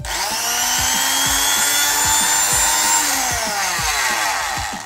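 Silverline 300 W corded oscillating multi-tool switched on and running free with no load, a steady high whine. About three seconds in it is switched off and the pitch falls as the motor winds down.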